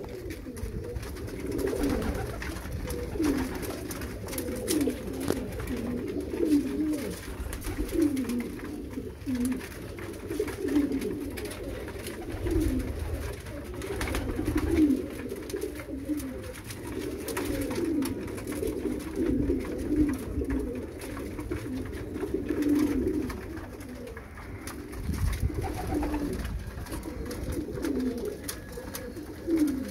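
A flock of racing pigeons cooing continuously, many short overlapping calls at once, while the birds crowd a grain trough to feed.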